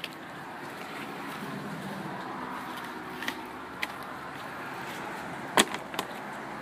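A fillet knife knocks and clicks sharply against a cutting table a few times as a fish is filleted, the loudest knock about two-thirds of the way through. Underneath runs a steady background noise.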